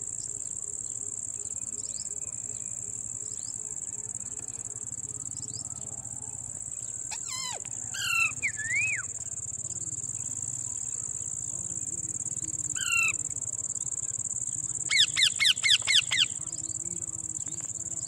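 Crickets trilling in a steady high drone, with bird calls breaking in: a few whistled calls about seven to nine seconds in, one more around thirteen seconds, and a quick run of about six sharp calls near the end.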